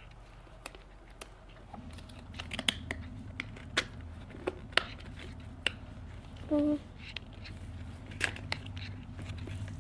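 Toy packaging being handled and opened by hand: scattered sharp clicks and taps of a plastic carry case and a small cardboard box, with some crinkling. A low steady hum comes in about two seconds in.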